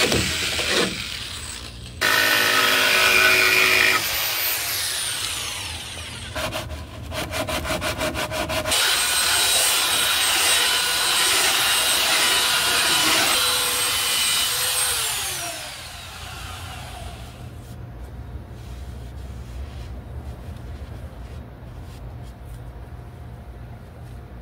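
Power tools cutting plywood in several short segments: a corded drill driving a hole saw, then a handheld electric tool trimming the edge of the hull, running with a steady whine. About 16 seconds in the tool winds down, leaving a quieter steady noise.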